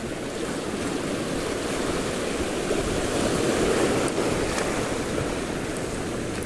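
Sea waves washing in over a shallow reef shore, with wind buffeting the microphone. The wash swells about three to four seconds in.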